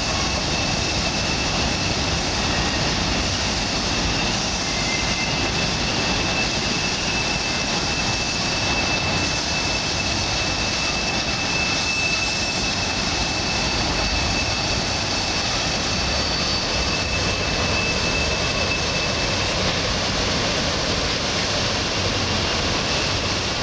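Freight cars of a mixed freight train rolling past on a curve: a steady rolling rumble of wheels on rail, with a thin, steady high-pitched squeal that stops near the end.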